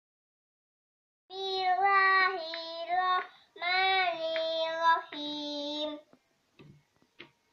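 A young child singing a short tune: held, clear notes stepping downward in two phrases, with a brief breath between them, ending about six seconds in. A few light taps follow.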